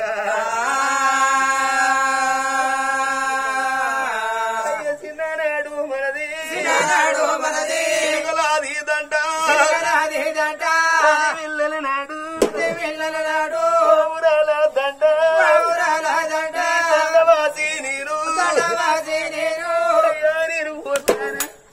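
Male voice singing an Oggu Katha sung narrative: one long held note for the first few seconds, then a wavering, ornamented melody line.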